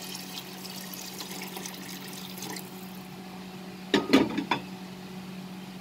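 Warm water poured from a glass jug into a steel pot of chicken and potato curry, a steady splashing pour that tails off about three seconds in. A brief louder sound follows about four seconds in.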